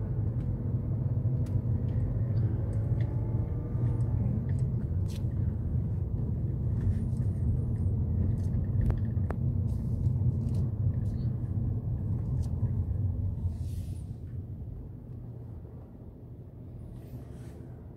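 Car engine and road rumble heard from inside the cabin while driving, with the engine note gliding up and down a few seconds in. It quietens noticeably near the end.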